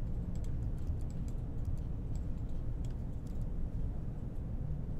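Scattered clicks of computer keyboard keys and a mouse, pressed one after another in an uneven rhythm, over a steady low hum.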